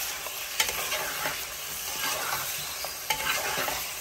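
Meat, tomatoes and whole spices sizzling in oil in a pot while a spoon stirs them, with a steady frying hiss and a few clicks of the spoon against the pot.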